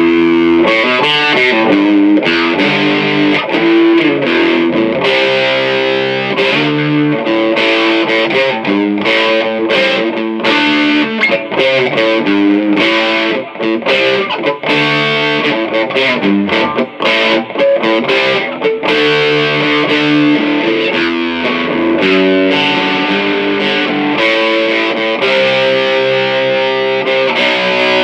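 Distorted electric guitar: an Ibanez GIO on its Lace Deathbucker bridge pickup, played through a Fender Princeton 112 Plus amp's overdriven channel. It plays a continuous riff of quickly changing notes with no break.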